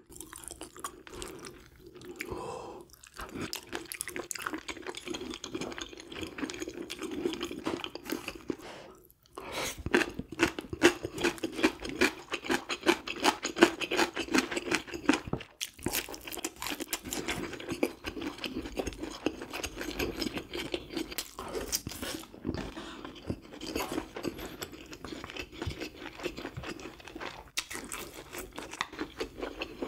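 Close-miked chewing and crunching of grilled sea bream: quick, wet, clicking mouth sounds that run on with only short pauses, about 9 and 15 seconds in.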